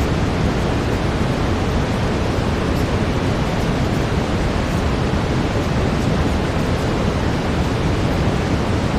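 Steady brown noise, a deep even rushing hiss with most of its weight in the low end, unchanging throughout.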